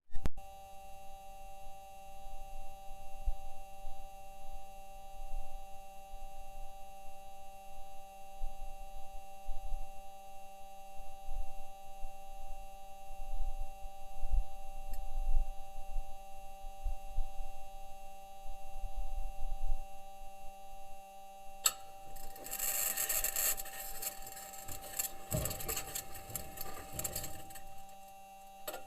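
Perseverance Mars rover driving, heard through its onboard microphone: a low, uneven rumble from the wheels under steady high-pitched electrical tones. About 22 s in, loud scraping and clattering of the metal wheels grinding over rock begins and runs until just before the end.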